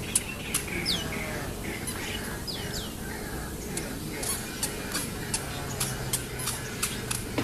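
Birds calling: a run of sharp, short chips, coming thicker in the second half, with a few short downward-sliding whistles in the first three seconds.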